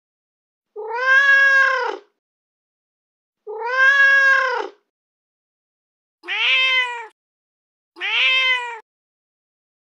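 A domestic cat meowing four times, with dead silence between the calls. The first two meows are longer and rise then fall in pitch. The last two are shorter and fall in pitch.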